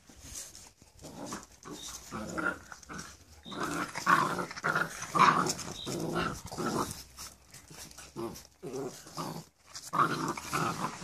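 A pug and a vizsla play-fighting, growling in short, irregular bursts that are loudest about four to six seconds in and again near ten seconds.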